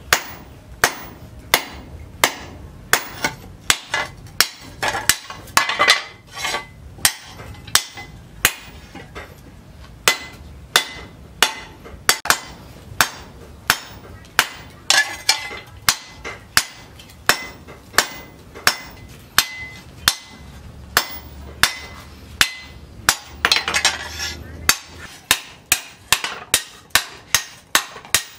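Hammer blows on steel from a tractor's disc plough, held on a cylindrical steel anvil: a steady run of sharp, ringing strikes, about two to three a second.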